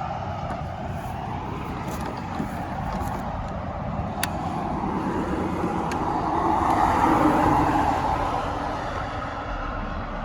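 Road traffic noise, swelling and fading as a vehicle passes about six to eight seconds in, with a few faint clicks.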